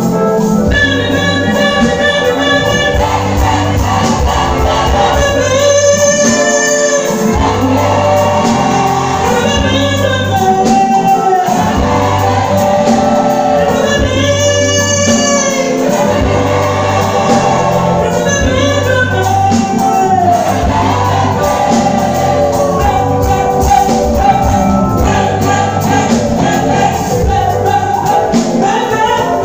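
Live Ghanaian gospel music: women singing together in chorus through a PA, over a band with a steady bass line.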